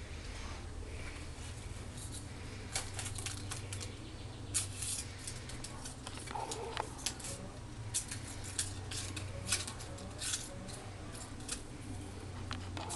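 Paper Band-aid wrapper crinkling and clicking irregularly as a kitten bats it around in a bathroom sink, over a steady low hum.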